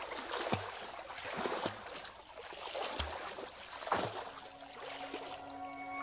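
Water splashing in a few separate splashes, each a short rush with a quick falling tail. A steady ringing musical tone comes in near the end.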